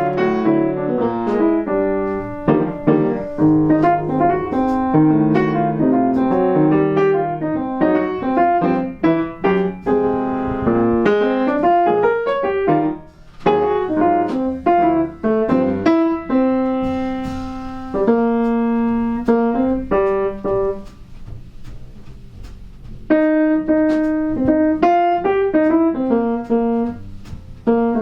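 Piano playing jazz, a run of chords and single-note lines. The playing drops out briefly about halfway, and holds several sustained chords later on.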